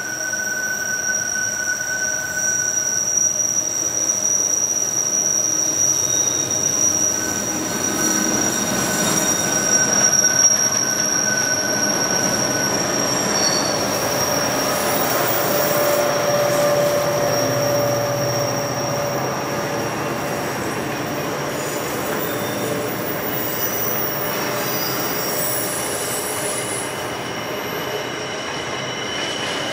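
A long diesel-hauled freight train of NR- and G-class locomotives and container wagons rolling past on a curve. Steady high-pitched wheel squeal sounds over the rumble of the wheels, and the locomotives' engines are heard as they pass about a third of the way in.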